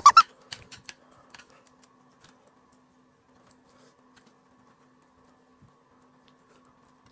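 Near silence: a faint steady room hum, with a few soft clicks in the first second and a half.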